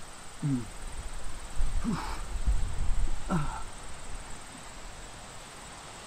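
A man's short effortful grunts, three times about a second and a half apart, each falling in pitch, as he does toe-reach crunches. A low wind rumble on the microphone runs through the middle.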